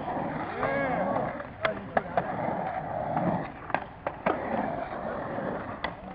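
Skateboard riding a concrete bowl: a steady rumble of the wheels rolling over the concrete, broken by sharp clacks of the trucks and board hitting the coping and deck, in two quick groups of three about two and four seconds in, and once more near the end. A voice with a rising and falling pitch calls out briefly about a second in.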